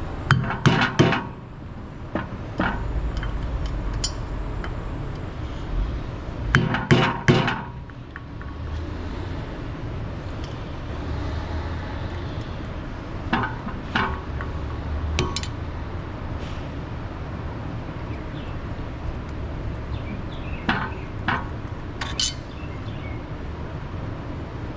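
Metal hand tools clinking and knocking against the steel wheel hub: two short clusters of sharp metallic knocks, the first about half a second in and the second about seven seconds in, then scattered single clicks, over a steady low hum.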